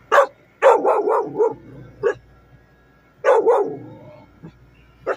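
Dogs barking inside a car: a single bark, then a quick run of about four, another single, a pair, and a last short bark near the end.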